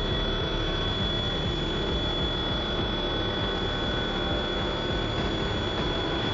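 OPTI mill F310 CNC milling machine cutting a metal block with an end mill: a steady high whine from the spinning cutter over the continuous noise of the cut.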